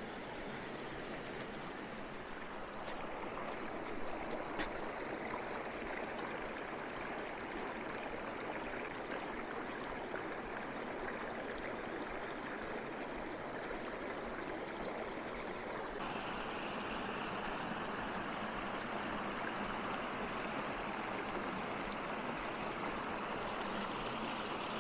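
A shallow rocky stream running steadily over stones, becoming a little louder and fuller about two thirds of the way through where water spills over a low weir.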